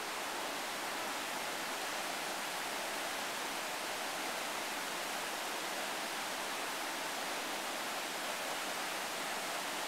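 Steady rush of flowing river water, an even hiss with no single splashes or other events standing out.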